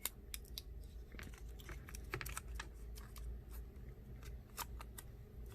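Scattered light clicks and taps of small phone parts and tools being handled during an iPhone screen replacement, over a low hum.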